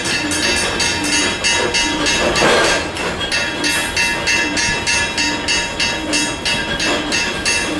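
A machine running with a regular clattering rhythm, about three to four strokes a second, over a steady whine.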